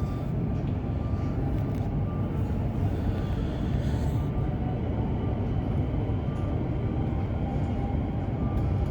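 Electric suburban train running between stations, heard from inside the carriage: a steady low rumble with a faint high tone that comes and goes.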